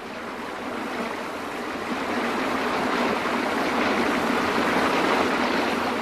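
Stream water rushing over rocks at a small fall, a steady whitewater rush that swells over the first couple of seconds.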